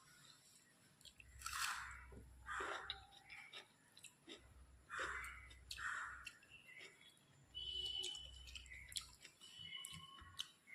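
A person chewing food close to the microphone, with wet mouth and chewing sounds in irregular bursts and a few soft crunches.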